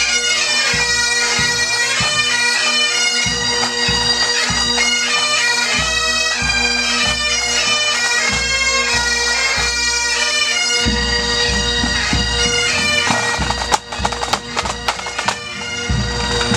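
A pipe band playing on the march: Highland bagpipes carrying a tune over their steady drones, with snare and bass drums beating time. Near the end a few sharp knocks and dips in level break in.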